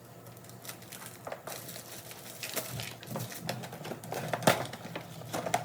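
Toy box packaging being opened by hand: irregular crinkling and rustling with scattered clicks and knocks, growing busier and louder in the second half.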